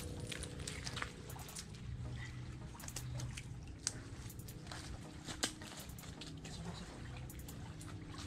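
Water dripping and trickling from a wet cast net being shaken and handled as mullet are picked out of it, with scattered small clicks and two sharper taps near the middle.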